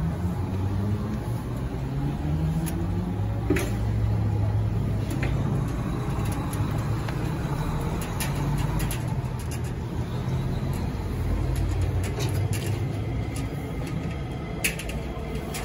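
Steady low rumble of a motor vehicle in motion, with a few light clicks and knocks.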